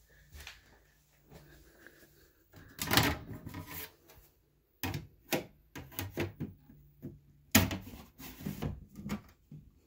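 A series of sharp knocks and rattles, the loudest about three seconds in and a cluster more from about five to nine seconds in.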